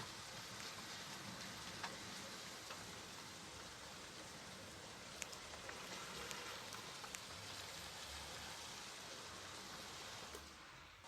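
Steady rain falling, an even hiss with a few sharper drop taps. The sound dips briefly near the end.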